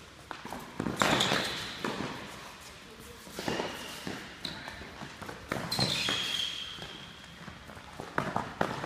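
Rapid footwork on a tennis court: shoes scuffing and squeaking on the surface amid a string of sharp thuds, the loudest about a second in.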